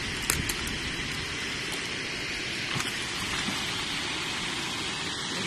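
Steady rushing of water pouring over a weir, with a few small splashes from a hooked pike thrashing at the surface.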